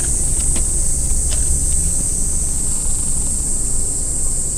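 Outdoor ambience: a steady low rumble with a steady high-pitched hiss over it, and a few faint light clicks in the first couple of seconds.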